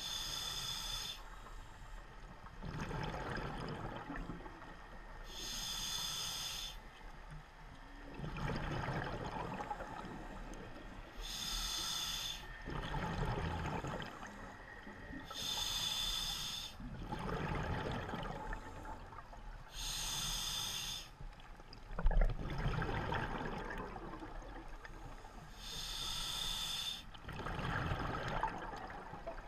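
A scuba diver breathing through a regulator, heard underwater: six breaths about five seconds apart, each a short hissing inhale through the regulator followed by a burbling rush of exhaled bubbles. A single sharp knock about three-quarters of the way through.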